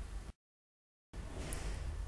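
Low, steady background hiss and hum that drops out to dead silence for under a second, about a third of a second in, then comes back.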